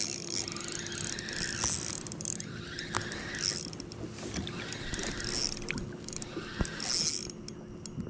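Spinning reel being cranked steadily, its gears whirring with a steady hum and light rattling ticks as line is wound in after a strike on the squid jig.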